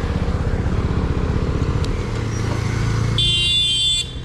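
Motorcycle engine idling with a steady, rhythmic pulse, and a brief high-pitched tone about three seconds in.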